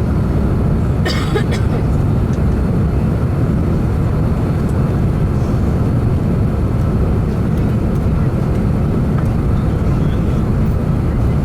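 Steady low rumble of engine and airflow noise inside the cabin of an Airbus A350-1000 descending towards landing, with a short click about a second in.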